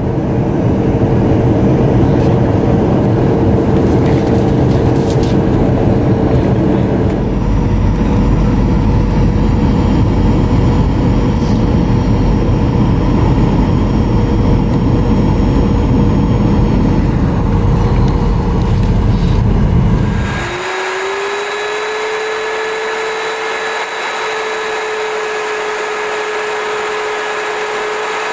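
Cabin noise of a Boeing 737-900ER in flight: a steady loud rumble of rushing air and engines with a held whine running through it. About two-thirds of the way in, the low rumble cuts away abruptly, leaving a thinner hiss and a whine that rises slightly, then holds.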